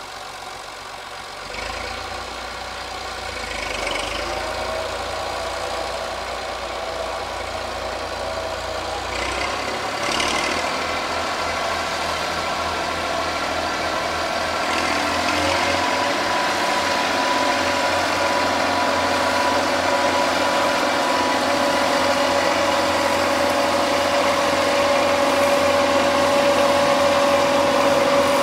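Massey Ferguson 235 tractor running steadily while driving an Agrimaster XB 150 flail mulcher through thick grass, growing gradually louder. A steady high whine joins in during the second half.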